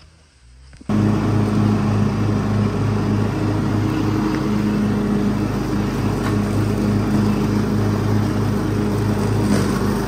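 Cub Cadet riding lawn mower engine running steadily while mowing, coming in suddenly about a second in.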